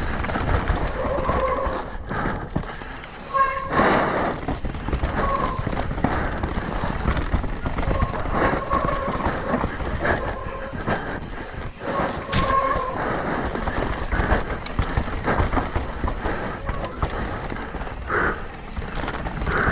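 Mountain bike ridden over a rough trail: a continuous rattle and rumble of tyres, chain and frame, with wind on the microphone. Short high squeals come several times, and a few sharp knocks.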